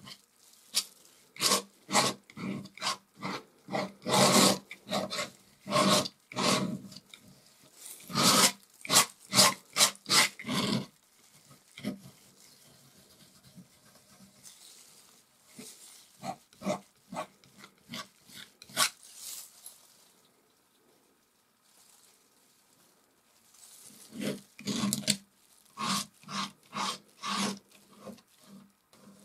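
Palette knife scraping and spreading oil paint, in runs of short strokes with two quieter gaps, about halfway and about three quarters through.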